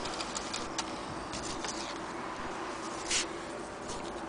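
Scattered light clicks and taps of hands handling the metal bed plates of an antique Singer 28K hand-crank sewing machine, with a short scrape about three seconds in, over a steady hiss.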